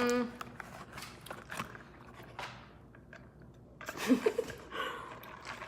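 Chewing and small mouth clicks of someone eating fast food close to the microphone, with a brief hum at the start and a short murmur about four seconds in.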